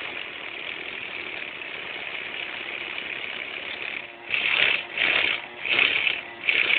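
Small nitro engine of a Tamiya TGX RC car running at a steady idle, then blipped in short revs about every 0.7 seconds from about four seconds in.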